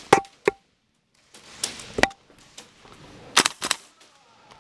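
Gas blowback airsoft rifle, a KWA LM4, firing sharp single shots: two near the start, one about two seconds in, and a quick group of three near the end, the first three with a short ringing tail.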